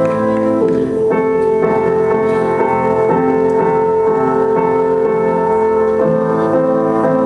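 Live music: slow, sustained piano chords, the chord changing about a second in and again near the end.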